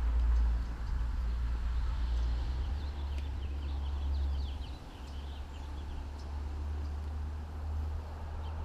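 Small birds chirping in a quick twittering run for about two seconds, starting around two seconds in, over a steady low rumble.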